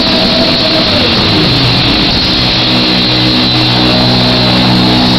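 Horror punk band playing live, very loud and distorted through an overloaded recording. A held guitar note drops in pitch about a second in, then the band sustains a steady distorted chord.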